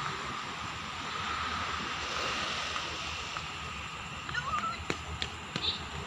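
Faint, steady rumble of a distant Alsthom diesel-electric locomotive idling or approaching the station, under night-time background noise. Near the end come a few sharp clicks and short chirps.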